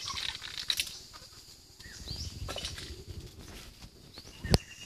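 Faint rustling with a few short, high chirps, and one sharp knock about four and a half seconds in.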